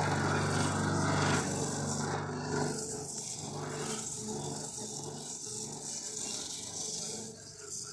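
Electric rotary grater running with a steady motor hum, its spiked disc rasping against a chunk of food pressed onto it by hand; the grinding is heaviest in roughly the first second and a half.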